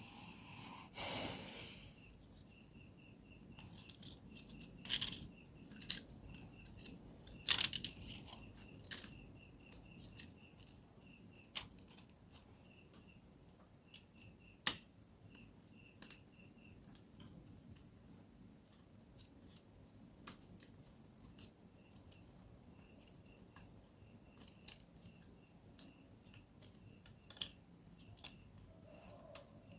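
Small sharp clicks, taps and a short scrape from tools and plastic or metal parts being handled while a smartphone is taken apart. The clicks are irregular and loudest in clusters about five and seven seconds in. Under them runs a steady pulsing chirp of crickets.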